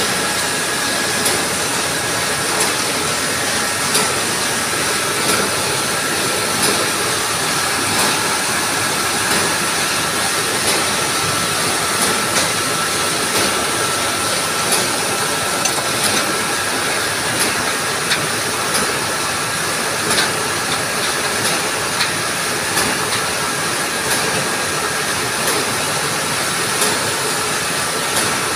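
Cement-sack production machinery running steadily, a constant hiss and hum with a sharp clack repeating about every 1.4 seconds, like the cycle of a bag-making machine.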